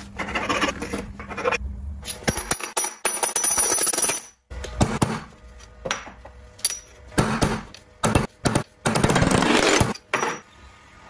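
Cut-together workshop sounds of stainless steel plates being handled and worked: metallic clinks and taps with several bursts of harsh tool noise, the longest near the end.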